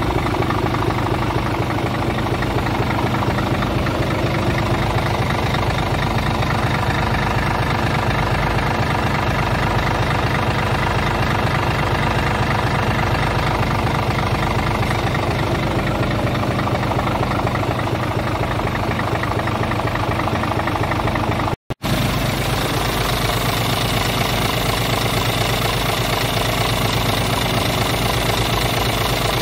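Scania R500's 13-litre inline-six diesel idling steadily, heard close up in the open engine bay, with a momentary gap in the sound about three-quarters of the way through.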